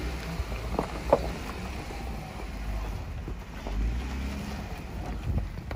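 Jeep Wrangler Unlimited engine running low and steady as the Jeep crawls slowly up a sandstone ledge, with wind buffeting the microphone. Two short sharp sounds come about a second in.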